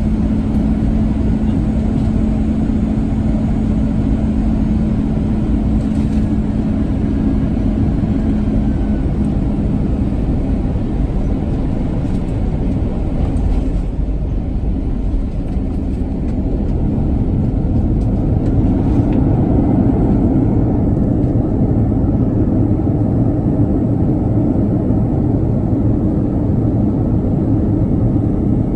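Airliner cabin noise as an Airbus A320 lands: a steady rumble of engines and airflow, with a steady hum that fades out about a third of the way in, then touchdown and the roll along the runway, the rumble growing louder about two thirds of the way through.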